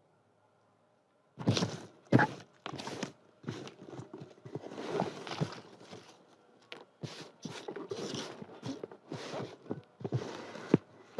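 Paper being handled close up: irregular rustling and crinkling with sharp clicks and taps, starting after about a second and a half of near silence.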